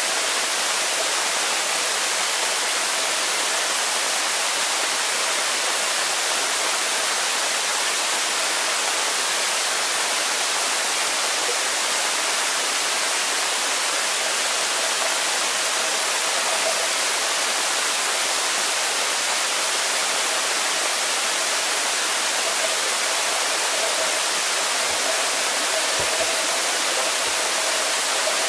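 Underwater swimming-pool sound picked up by a submerged camera: a steady, even hiss of water with a faint steady hum. A few soft low thumps come near the end.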